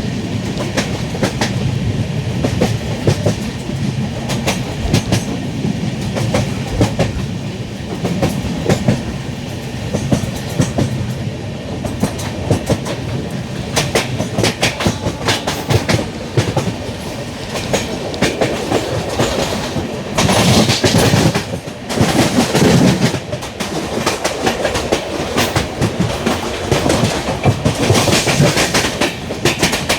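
LHB passenger coach running at speed, its wheels clicking over rail joints in an irregular clatter over a steady rumble. About twenty seconds in the rushing noise grows louder and brighter twice for a second or so.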